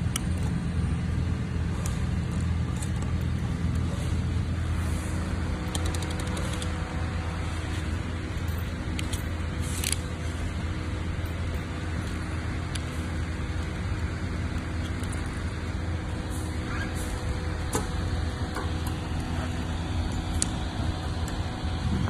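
Steady low mechanical hum, even and unchanging, with a few faint clicks and taps over it.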